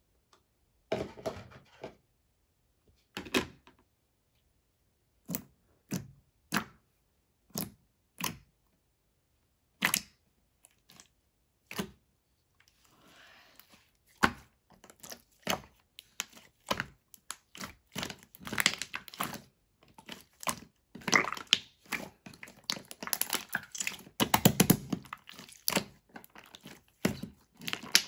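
Close-up clicks and knocks, at first single ones about a second apart, then from about halfway on thickening into dense crackling and crunching.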